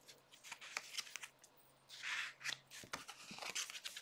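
Pages of a handmade junk journal being turned by hand: soft paper rustles and light taps, with a brief swish of a page about two seconds in.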